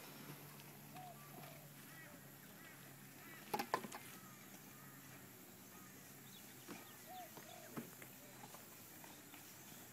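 Faint outdoor background with a few short, distant honking bird calls, and a brief cluster of sharp knocks about three and a half seconds in.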